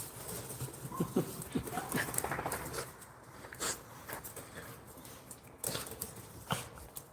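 A dog making a few short whines in the first two seconds, then scattered light clicks and taps.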